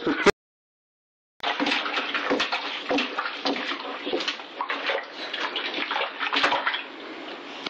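A baby splashing and slapping water with her hands in a plastic baby bathtub: a quick run of splashes. It is broken by about a second of dead silence shortly after the start.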